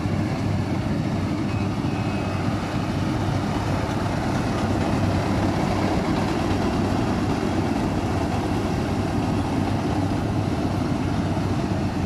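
Yanmar rice combine harvester running steadily under load as it cuts and threshes the crop: its diesel engine and threshing machinery make a constant loud drone with a low hum.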